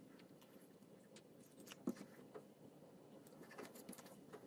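Near silence with faint scattered clicks and ticks of small handling as a soldering iron and a thin wire are worked against a sensor board's pins, and one sharper click about two seconds in.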